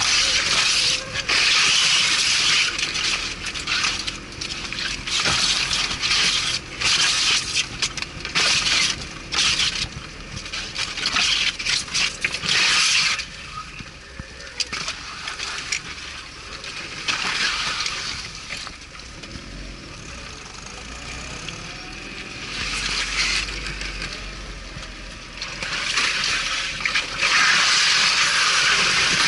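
Off-road vehicle splashing through water and mud: a loud rushing, splashing noise that comes in surges and eases off for a while in the middle.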